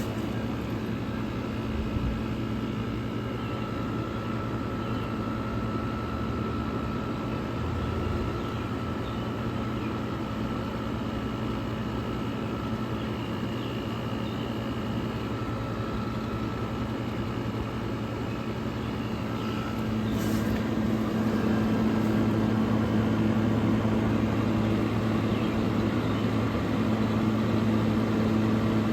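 Vintage GE Thinline room air conditioner running: a steady fan whoosh over a low electric motor and compressor hum. About twenty seconds in, it steps up and runs louder.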